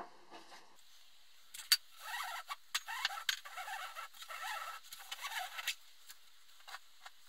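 Nylon webbing strap being pulled off and slid out from around a battery pack: a sharp click about one and a half seconds in, then a few seconds of rasping scrapes as the strap drags across the pack.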